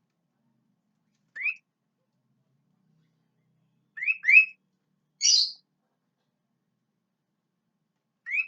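Sooty-headed bulbul (kutilang) calling in short, rising chirps. There is a single note, then a quick pair about four seconds in, then a harsher note just after. Another quick run of chirps starts near the end.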